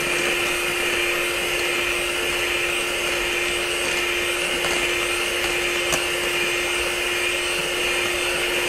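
Electrolux electric hand mixer running at one steady speed, its twin beaters whipping frothy egg whites in a stainless steel bowl: a constant motor whir with a steady hum.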